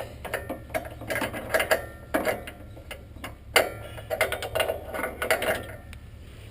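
Hydraulic hoses and their metal coupler ends rattling and clinking as they are handled and pulled free, with irregular clicks and a sharp knock about three and a half seconds in. A steady low hum of the idling compact tractor engine runs underneath.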